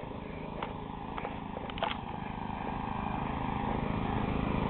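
Riding lawn mower's small engine running steadily with a rapid pulsing beat, growing gradually louder.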